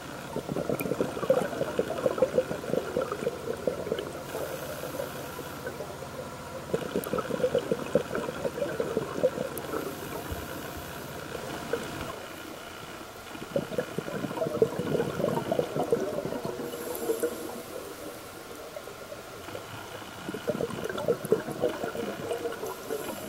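Scuba diver's breathing on a regulator underwater: a bubbly rush of exhaled air lasting three to four seconds, four times, with quieter inhale stretches between.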